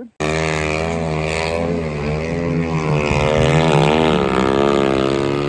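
A snow machine's engine running at high revs as it climbs a deep-powder slope, with its pitch dipping briefly and rising again about three and a half seconds in.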